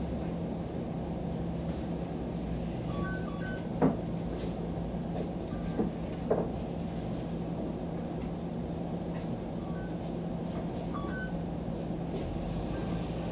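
Inside a Toronto Flexity Outlook streetcar: a steady low hum from the car, with a few sharp clunks, one about four seconds in and two close together around six seconds in.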